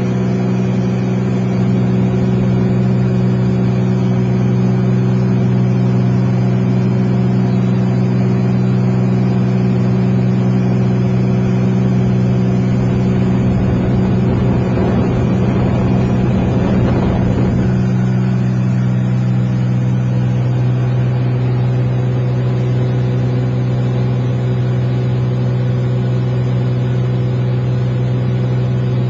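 Engine running loudly at a steady drone, with a rushing swell of noise about halfway through; near two-thirds of the way through part of the hum drops away.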